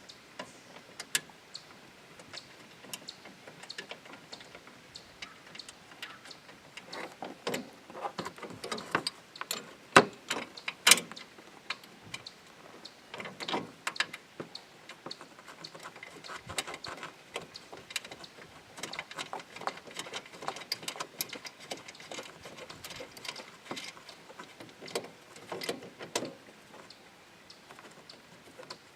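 Irregular metallic clicks and clinks of hand tools and hardware while a car's hood latch is being bolted into place, coming in loose clusters with two sharper knocks about ten and eleven seconds in.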